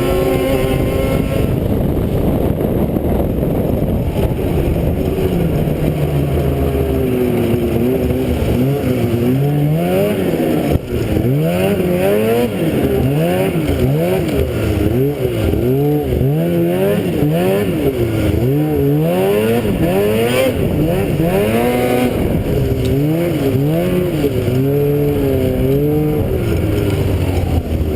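Snowmobile engine running under a constantly changing throttle, its pitch rising and falling over and over as the machine is ridden along.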